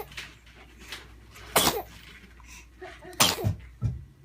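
Newborn baby sneezing twice, about a second and a half apart, each a short sharp burst, with a smaller burst shortly after the second.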